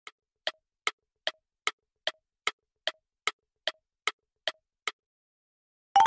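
Countdown-timer sound effect: an even clock-like ticking, about two and a half ticks a second, over the timer's last seconds. About six seconds in, a short quick rising chime marks time running out.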